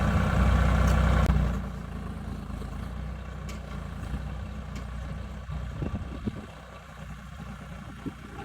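Mini excavator's engine running, loud for the first second and a half and then dropping to a quieter steady run. A few knocks come in the middle.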